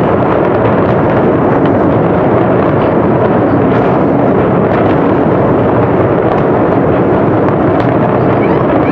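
Fireworks barrage: explosions follow so fast that they merge into one loud, continuous rumble, with no single blast standing out.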